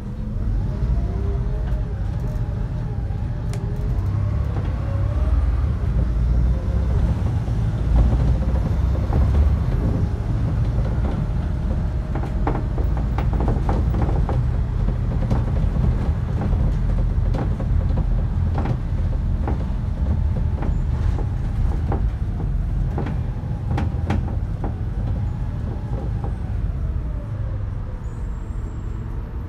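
Inside a Volvo B7RLE single-deck bus under way: a steady low drone of engine and road noise, with a faint whine that rises and falls as the bus changes speed, early on and again near the end. In the middle comes a run of sharp clicks and rattles.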